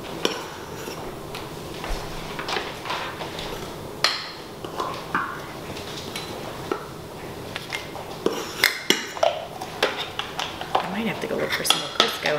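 Measuring cup and utensils clinking and knocking against the food processor bowl and containers while flour is scooped into the bowl and levelled. Scattered knocks at first, then a quicker run of taps, about three a second, from around two-thirds of the way in.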